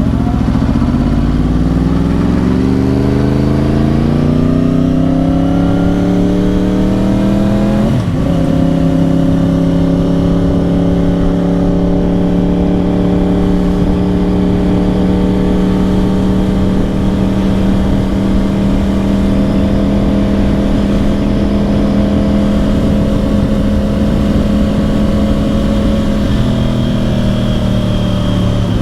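2010 Yamaha R1's crossplane inline-four running through dual Yoshimura exhausts under way: the engine note climbs steadily for about eight seconds, shifts up, then holds a steady cruise and eases off slightly near the end.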